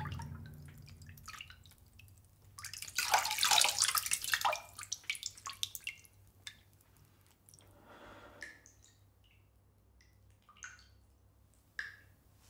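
Water in a filled bathroom sink: a rush of splashing and streaming water for about two seconds, then single drops falling back into the basin one at a time, some with a short rising plink.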